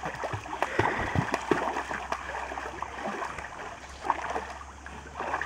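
Water splashing and gurgling, with many small irregular splashes that thin out toward the end.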